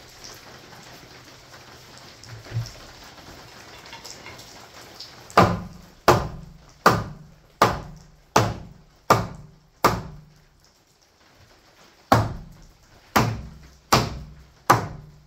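Hammer driving nails into the wooden framing of a door opening: a run of seven sharp strikes about every three-quarters of a second starting about five seconds in, a short pause, then four more.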